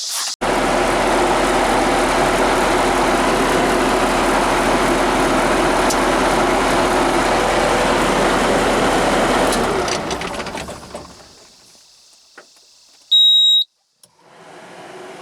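Bobcat cab air-conditioner blower running loud and steady, switched off about ten seconds in and winding down. A short electronic beep from the control-panel button pad follows near the end, then the blower starts again more quietly, coming on at a soft touch of the repaired button.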